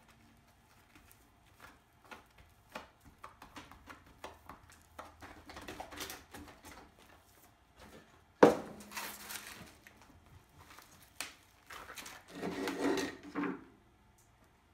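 Gloved hands patting, pressing and smoothing wet homemade high-temperature cement onto a paper-wrapped pipe form: a run of small wet pats and clicks, a sharp knock about eight and a half seconds in, and a louder stretch of rubbing and scraping near the end.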